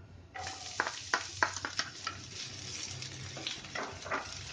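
Chopped onion sizzling as it drops into hot oil in a frying pan, the hiss starting about half a second in and carrying on. Sharp clacks of a wooden spatula come as the onion is scraped in and stirred.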